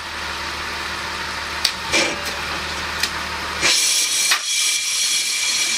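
Front brake rotor of a 2004 Honda Pilot spun by the idling engine in first gear, scraping against an on-car brake lathe's carbide cutting bits: a steady metallic whir and hiss with a few sharp clicks. About two thirds of the way through, the low hum drops out and the sound turns higher and hissier, with a few steady high tones.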